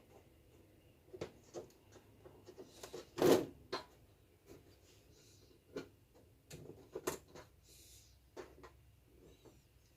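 Handling of the thin sheets ('papers') being laid into an LED TV's backlight panel: scattered soft knocks, taps and rustles, the loudest about three seconds in.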